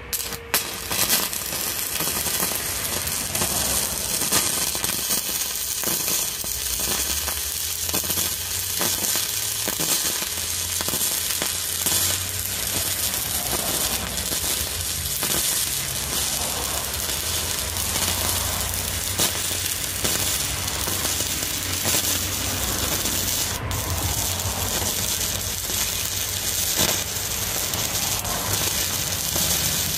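Stick welding with a 2.5 mm electrode: the arc strikes about half a second in and then crackles and sizzles steadily.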